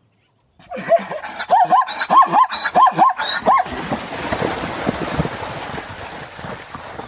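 Zebra barking call: a quick run of about eight high, yelping notes, then a hoarse, wheezing tail that fades away.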